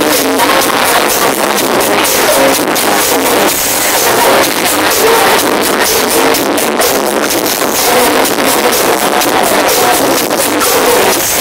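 Loud dance music from a DJ set, played over a nightclub sound system, with a steady beat and little bass.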